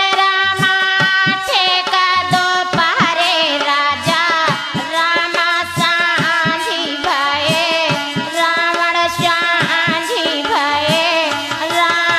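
A woman singing a sohar folk song, her voice wavering in ornaments, over a steady held note. Quick, regular dholak drum strokes accompany her.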